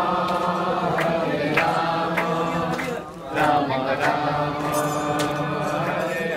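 A congregation chanting a devotional mantra together in unison, two long sung phrases with a brief break about three seconds in, and a few sharp clicks over the voices.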